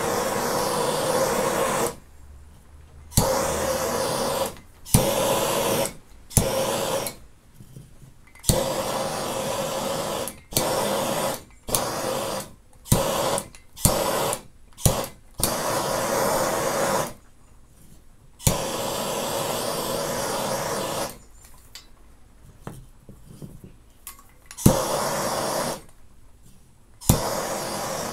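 Bernzomatic handheld propane torch fired in short bursts, its flame hissing for under a second to a couple of seconds at a time. Each burst starts with a sharp click, and there are quieter gaps between bursts.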